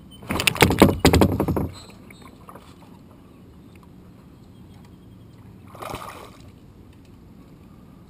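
Fishing reel clicking and whirring rapidly for about a second and a half as line pays out on a cast. A shorter, fainter sound follows about six seconds in.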